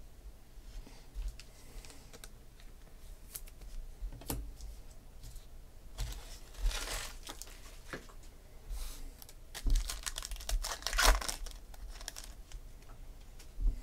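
Trading cards handled on a table with light clicks and taps, then a baseball card pack's wrapper crinkled and torn open in two spells of crackling, about six and ten seconds in, the louder near the end.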